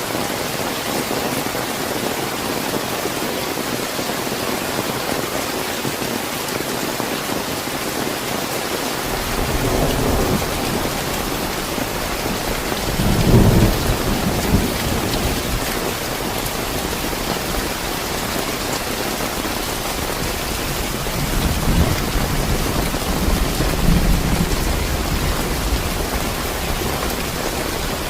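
Steady, fairly heavy rain, with thunder rumbling in about a third of the way through, swelling to its loudest about halfway, and rumbling again twice near the end.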